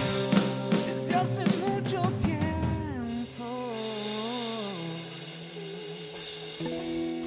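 Music: a band with drums and percussion, followed by a wavering melodic line over held chords that settle into sustained notes near the end.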